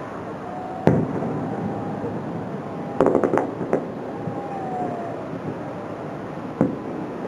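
Fireworks going off: a sharp bang about a second in, a quick run of cracks around three seconds in, and another bang near the end, over a steady background hiss.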